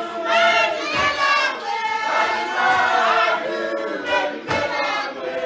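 Background music: a choir singing, several voices held together in harmony.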